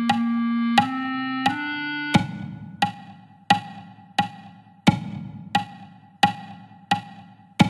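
Computer playback of a clarinet part holds three rising notes, one per beat, over a metronome click. After about two seconds the notes stop and only the metronome goes on, ticking about three times every two seconds through a rest.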